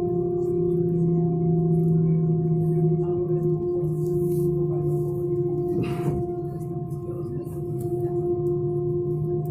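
Steady droning hum inside a jet airliner's cabin while it taxis, made of several constant tones over a low rush of noise. A brief rustle about six seconds in.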